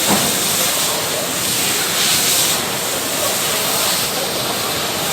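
Fire hose spraying water, a steady rushing hiss that swells briefly about two seconds in.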